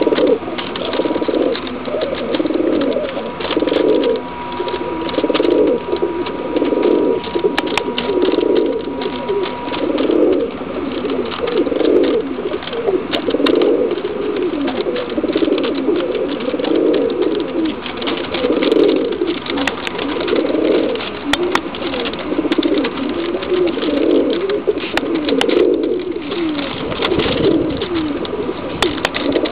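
Domestic pigeons cooing in a cage: a long run of repeated coos, about one a second.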